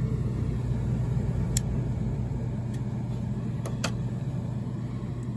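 Oil furnace running with a steady low hum and rumble, with a couple of faint clicks.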